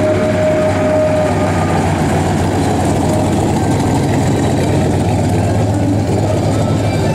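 Chevrolet C10 pickup truck's engine running with a steady low rumble as the truck drives slowly past.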